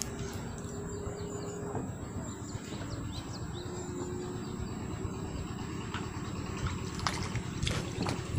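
A hooked crucian carp thrashing at the water's surface: a few short splashes near the end, over a steady outdoor background.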